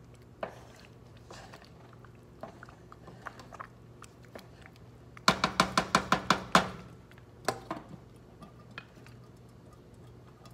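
Kitchen utensil clinking against a cooking pot of sauce: scattered light clicks, then a quick run of about nine sharp taps just past the middle, and a couple of single knocks after.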